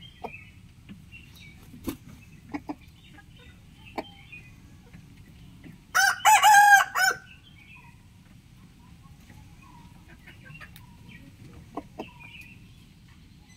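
A rooster crows once, a loud cock-a-doodle-doo lasting about a second, about halfway through. Faint scattered clicks and small chirps sound around it.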